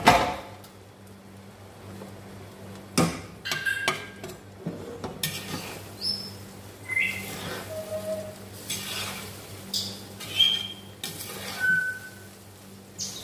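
A metal spoon scraping and clinking against a large metal pot as parboiled, drained rice is stirred and turned in oil. Irregular knocks, with some strikes giving a brief ringing ping.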